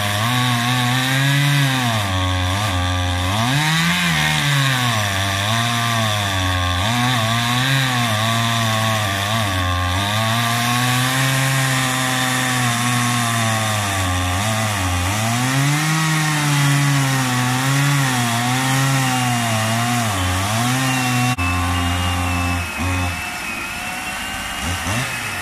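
Two petrol chainsaws running at once, cutting into a log from opposite ends. Their engine pitch keeps rising and falling as they bog down under load, because the chains are blunt. The sound changes abruptly a little after three-quarters of the way through.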